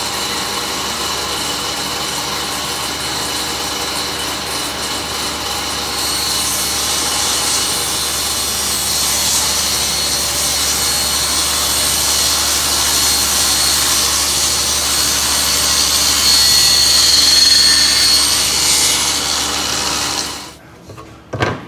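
Table saw running steadily, then its blade ripping a thin wooden board lengthwise from about six seconds in, the sound growing louder as the cut goes on. The sound cuts off abruptly near the end, followed by a short knock.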